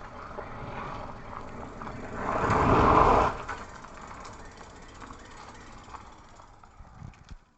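Mountain bike tyres rolling on pavement, a rushing noise that swells loud for about a second as a rider passes close, then fades.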